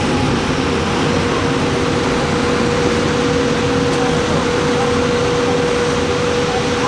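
Steady engine and road noise heard from inside a vehicle driving through a road tunnel, with a constant mid-pitched hum over it.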